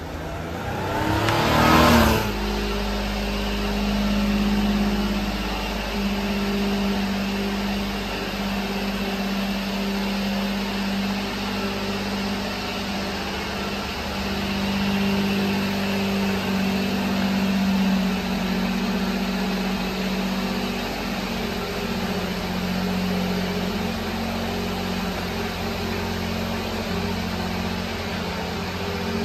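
A loud rising rush for about two seconds that stops abruptly, then the small three-cylinder engine of a 1998 Daihatsu Hijet truck idling with a steady low hum.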